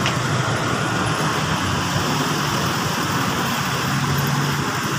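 Steady road traffic noise with vehicle engines running, one engine's hum growing a little stronger near the end.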